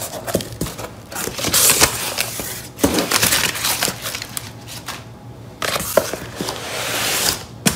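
Crumpled kraft packing paper rustling and crinkling as it is pulled out of a cardboard box. It comes in several louder bouts with short lulls between them.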